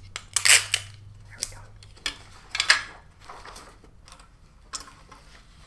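Clear adhesive tape pulled from a small roll and torn off, with sheets of copy paper rustling as they are pressed down and moved. The two loudest rips come about half a second in and near the middle, with a few lighter handling sounds in between and after.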